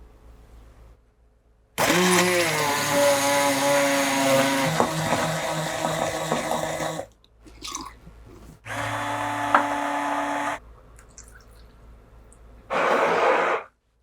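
Handheld immersion blender running in three bursts: a long one of about five seconds, then about two seconds, then a short burst near the end.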